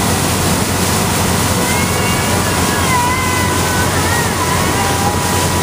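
Motorboat running fast over open water: a steady rush of wind, engine and water spray.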